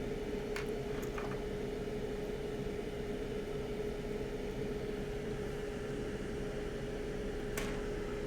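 Steady machine hum with a constant tone, like a fan running, with a few light clicks about a second in and another near the end.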